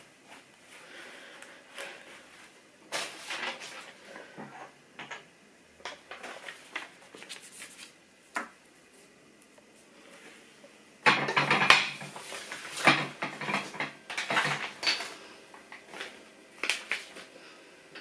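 Scattered clinks, knocks and clatter of household items handled at a kitchen fridge, with a denser, louder run of clattering about eleven seconds in that lasts some four seconds.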